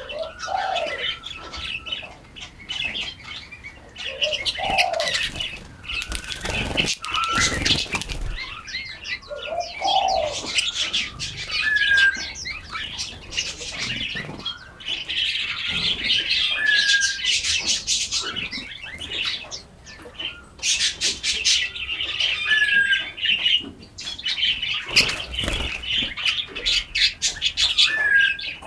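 Chorus of forest songbirds chirping and singing, with one bird giving a short, falling whistled note about every five seconds. Lower rising-and-falling notes come three times in the first ten seconds. Two brief rushing bursts come at about seven seconds and near the end.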